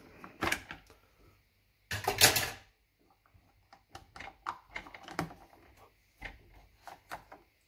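Plastic parts of a Philips Senseo coffee pod machine clicking and knocking as the pod holder is handled and taken out of the brewing chamber. A louder clatter comes about two seconds in, then a run of light quick clicks.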